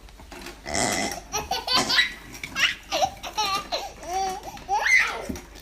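A buzzing, raspy fake fart noise made by mouth about a second in, followed by a baby laughing in a string of short squealing laughs.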